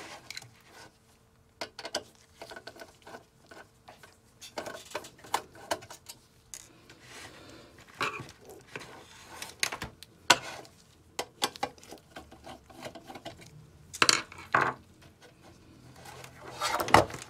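Steel ATX PC power-supply case being handled while its screws are taken out: scattered light metal clicks, taps and rubs, with a couple of louder scrapes near the end.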